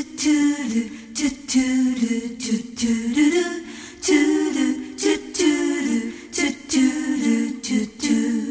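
A single voice singing a slow melody without accompaniment, in phrases of one to two seconds.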